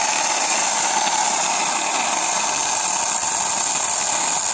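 Bosch UniversalChain cordless electric mini chainsaw running steadily at full speed, its chain cutting through a small log.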